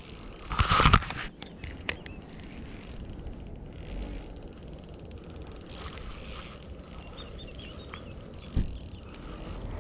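Spinning reel being cranked steadily to retrieve line, a fine ticking whir from the rotor and gears. A loud brief handling noise comes about half a second in, and a low thump near the end.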